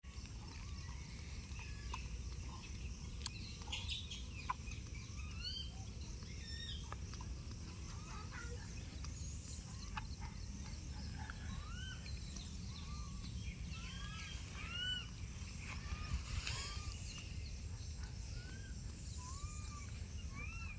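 Many short chirping animal calls, each rising then falling in pitch, repeating irregularly and growing more frequent in the second half, over a steady low outdoor rumble.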